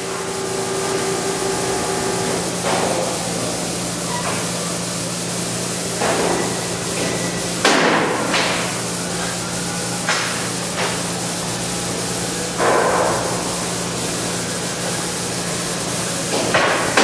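Robotic arc welding on 316L stainless steel: a series of short welds, each heard as a crackling hiss of under a second, about eight at irregular intervals, over a steady electrical hum and hiss.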